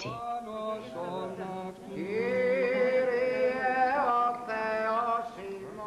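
Greek Orthodox wedding chant during the crowning rite: a voice sings long held notes, rising into its longest note about two seconds in.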